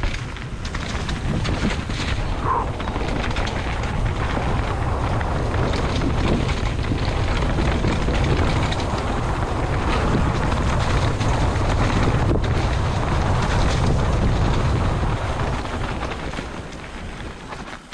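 Wind buffeting the microphone during a fast downhill run, a steady rushing noise with a low rumble. It dies down over the last couple of seconds.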